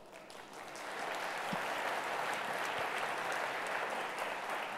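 Large audience applauding in a theatre hall, swelling over the first second or so and tapering off near the end.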